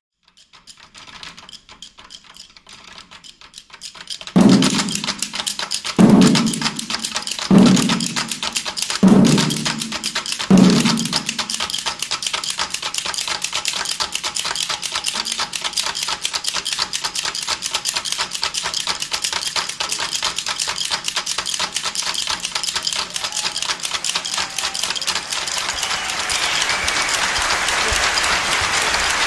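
Heavy drum struck five times, about a second and a half apart, then a fast, steady drumming rhythm of sharp percussion strokes.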